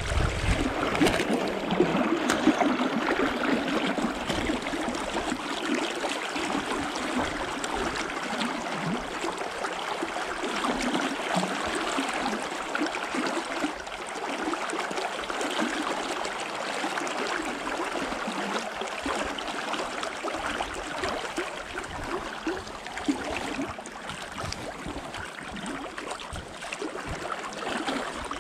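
Steady rush of river water flowing, with a few low knocks in the first couple of seconds.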